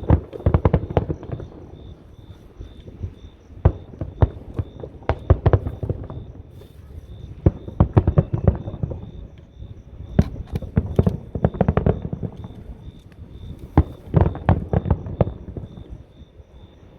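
Fireworks going off: sharp bangs and crackles in clusters every few seconds.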